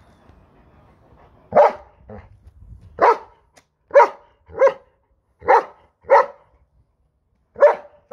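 Long-haired German Shepherd barking, about eight short barks with pauses between, mostly in pairs, starting about a second and a half in.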